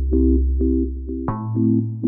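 Background music: synthesizer keyboard playing short repeated chords, about four a second, over a held bass note that changes pitch a little past halfway.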